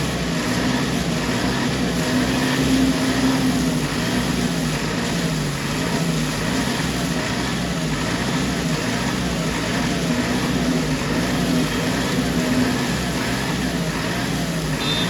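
Diesel engine of heavy earthmoving machinery running steadily under work, its pitch wavering up and down about twice a second.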